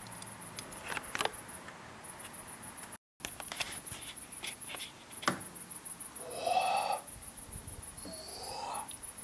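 Night-time outdoor ambience: insects pulsing steadily and high, with scattered faint clicks. A short pitched call about six and a half seconds in, the loudest sound, and a thinner rising call about a second later; the sound drops out briefly about three seconds in.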